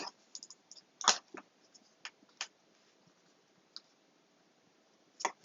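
A handful of scattered light clicks and taps, the loudest about a second in, from a nylon zip tie and USB cable being handled against a wooden panel as the tie is snugged down.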